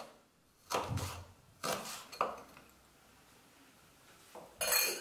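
Kitchen knife chopping spring onion on a wooden cutting board: three chops in the first couple of seconds, then a pause and a short clatter near the end.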